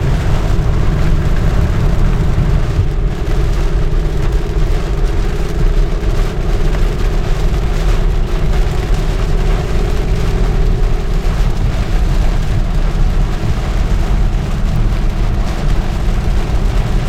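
A vehicle driving along a road, heard from inside: a steady rumble of engine and tyres under a broad hiss, with a hum holding steady for the first ten seconds or so.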